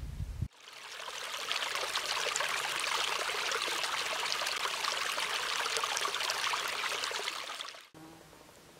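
Small mountain stream trickling and babbling over stones: a steady splashing hiss that fades in over the first second and cuts off shortly before the end. A brief low rumble comes before it, right at the start.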